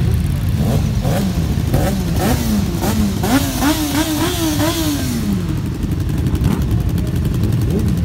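Several motorcycle engines running together in a low, steady rumble. One engine revs in a string of quick throttle blips that climb in pitch and then die away about five seconds in.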